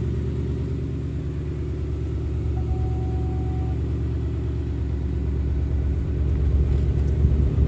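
Ford Mustang GT's 5.0 V8 engine idling with a steady low rumble, growing a little louder near the end.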